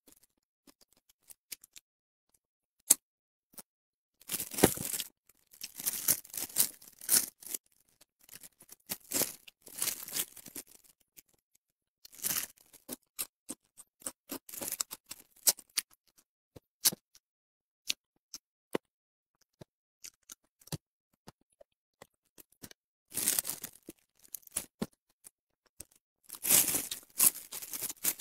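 Crisp grilled whole fish being pulled apart by gloved hands: the crust and fins crackle and tear in irregular bursts, with single sharp clicks in between. The longest bursts come near the end.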